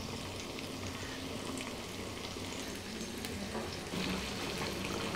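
Masala-coated fish pieces deep-frying in hot oil in a karahi: a steady sizzle with small crackles.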